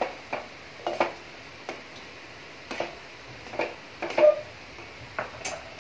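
A metal spoon stirs a thick rice-flour and pumpkin mixture in a steel pan, giving scattered light knocks and scrapes against the pan. The loudest knock comes a little after the four-second mark.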